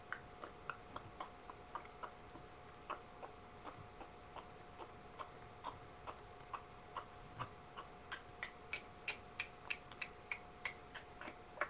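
Faint light clicks or taps, irregular and a few a second, coming faster in the last few seconds, over a faint steady high-pitched whine.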